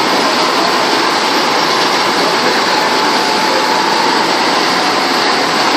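Cable-making production machinery running steadily: a continuous mechanical hum and hiss with a faint steady whine.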